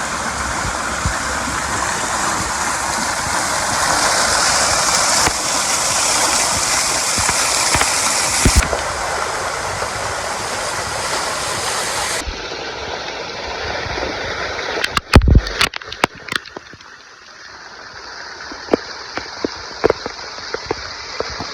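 Waterfall rushing, a steady noise of falling water that changes abruptly a few times and turns quieter in the second half. Around the middle of that quieter stretch come a few sharp thumps, followed by scattered clicks.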